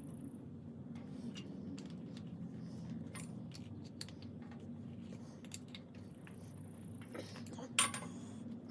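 Light clicks and taps of metal hydraulic fittings and tools being handled, with a sharper click near the end, over a steady low hum. An insect trills briefly in the background.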